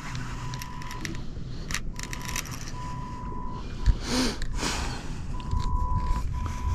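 Fighting a hooked barramundi on a baitcasting rod: a thin steady whine that cuts in and out several times, with scattered sharp clicks and two short rushes of noise about four seconds in.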